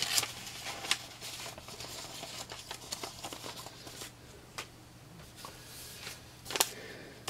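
Paper and cards being handled and shuffled: scattered light rustles and clicks, with a sharper rustle near the end.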